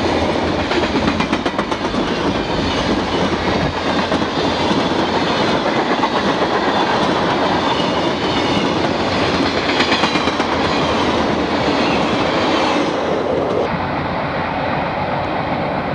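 Burlington Northern freight train of tank cars and boxcars rolling past close by: a steady rumble, with the wheels clicking over rail joints. About fourteen seconds in, the sound turns duller.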